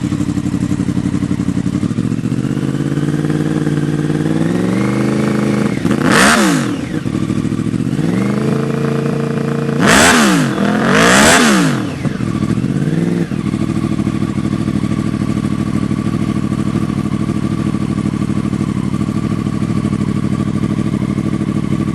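Yamaha R1's inline-four engine idling and then revved: a slow climb in revs about four seconds in, then three sharp blips, each falling quickly back to idle, before it settles to a steady idle.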